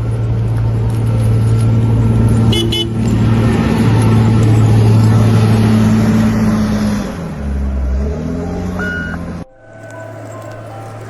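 Heavy snow-clearing machine's engine running loudly under load, its pitch dipping and climbing back about seven seconds in. Near the end it cuts off abruptly to a quieter engine running steadily.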